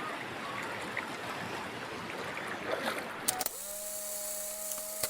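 Ocean surf as a steady rushing wash. About three and a half seconds in, after a couple of clicks, it switches to a steady electronic hum with hiss.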